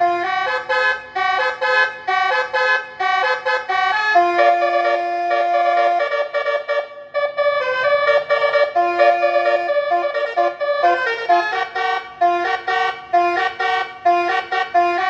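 Electronic telolet horn module playing a fast koplo-remix melody in flute-like basuri tones through a toa horn loudspeaker, quick notes broken by two longer held notes in the middle, over a steady low hum.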